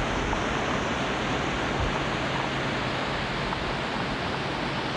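Wind blowing on the microphone: a steady, even rushing noise.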